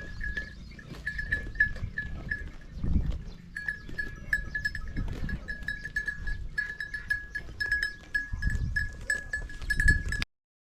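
Livestock neck bells clinking irregularly at one pitch, several strokes a second, as a flock moves, over a low rumble; the sound cuts off suddenly near the end.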